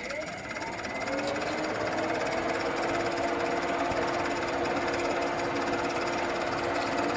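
A small electric motor on the mini skid steer, switched on with the key, spins up with a pitch that rises over about a second and then hums steadily.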